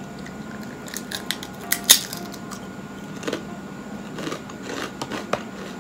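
Thick kettle-cooked potato chip being bitten and chewed: a quick run of sharp crunches, the loudest about two seconds in, then slower, scattered crunches as the chewing goes on. Extremely crunchy.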